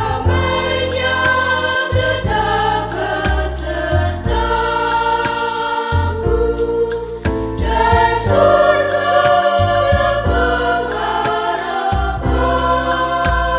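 Women's church choir singing an Indonesian hymn in parts, over an instrumental accompaniment with a steady bass line that changes with each chord.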